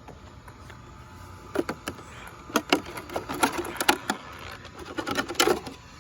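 Traxxas Maxx RC monster truck on a full-throttle speed pass: its brushless electric motor whines, with a run of sharp knocks and clatter through the middle of the pass.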